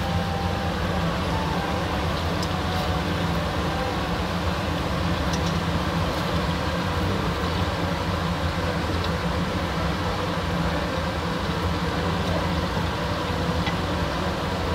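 Pieces of goat meat sizzling steadily in olive oil in a stainless steel pot as they brown, with a few light scrapes of a wooden spoon, over a steady low hum.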